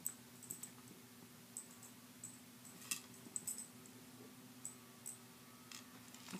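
Light, irregular clicks and taps from a small dog nosing and nudging a hard plastic treat-dispensing toy on carpet, with a faint steady hum underneath.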